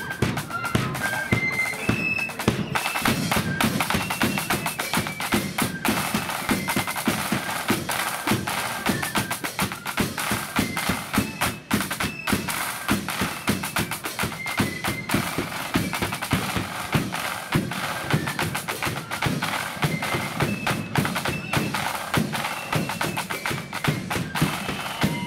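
Blood-and-thunder flute band playing: flutes carry a melody over dense, rapid side-drum strokes and rolls and bass drum beats.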